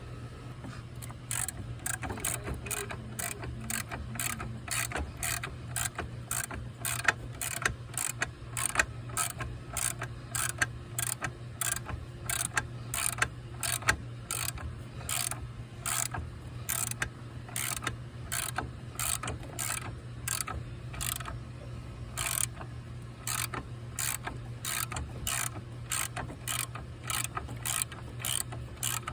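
Ratchet wrench clicking in repeated strokes as bolts are loosened, over a steady low hum.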